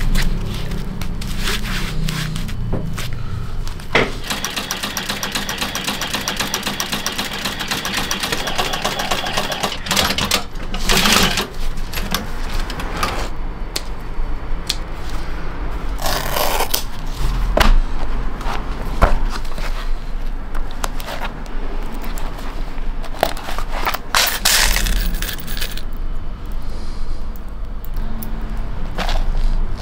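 Industrial sewing machine stitching leather boot uppers, its needle ticking quickly and evenly for several seconds, then scattered clicks and scrapes of handwork on the leather, over a steady low motor hum.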